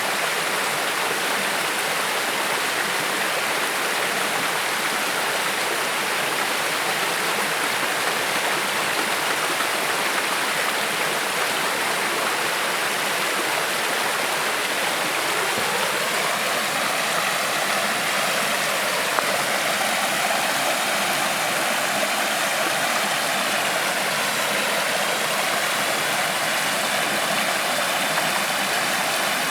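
Creek water flowing with a steady, even rush. About halfway through, a distant engine hum joins in under the water, rising in pitch and then holding steady.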